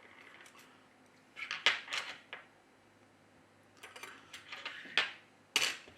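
Small sharp clicks and light scrapes of hand tools working on the inside of a Samsung A9 phone, in three short clusters: about a second and a half in, around four to five seconds in, and near the end.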